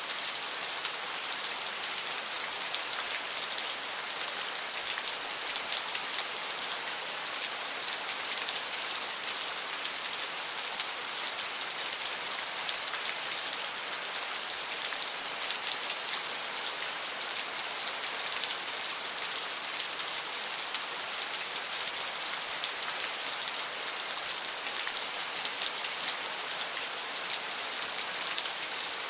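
Steady heavy rain falling on a hard surface: a dense, even hiss of countless drops with a fine crackle of single splashes, holding at a constant level throughout.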